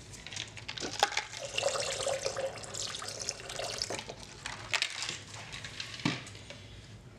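Titanium dioxide mix being tipped from a small cup into a plastic jug of cold-process soap batter: a liquid pouring and splashing sound, with a few light knocks.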